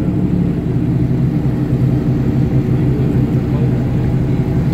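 Motorboat engine running steadily, a constant low hum that holds the same pitch throughout.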